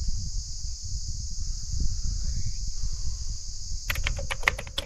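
Crickets chirping in a steady high-pitched drone over a low rumble of wind on the microphone. About four seconds in, the drone stops and a quick run of sharp clicks follows.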